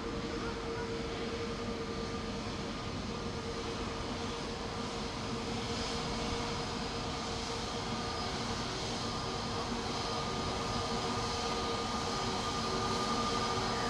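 Airbus A320neo's CFM LEAP-1A turbofans running at taxi power: a steady jet hum with a high whine, growing a little louder over the last few seconds.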